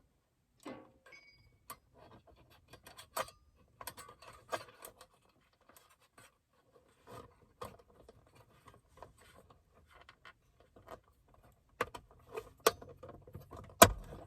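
Plastic parts of a replacement center console lid clicking, tapping and scraping as they are handled and worked into place, with a couple of sharper knocks near the end.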